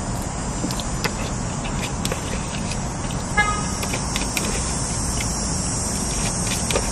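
Eating in a parked car: faint clicks of a plastic fork in a foam takeout container over a steady low rumble. A short car-horn toot sounds once, about three and a half seconds in.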